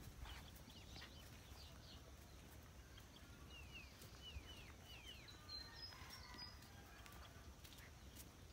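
Faint birdsong over a quiet countryside background: a run of five or six short downward-sliding whistles through the middle, followed by a few higher chirps.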